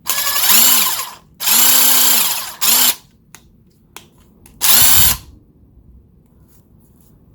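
Workpro 20V cordless impact wrench's brushed motor spinning free in reverse, run in four trigger pulls. Each pull spins up, holds a steady whine and winds down, the third very short.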